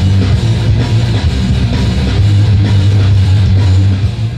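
Loud rock music with guitar, playing steadily.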